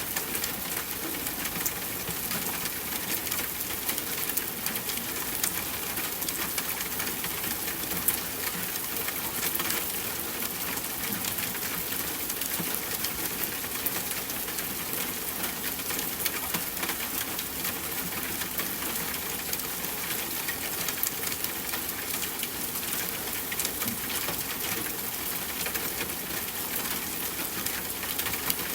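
Steady rain falling, a dense hiss of drops with many small separate drop ticks and an occasional louder one.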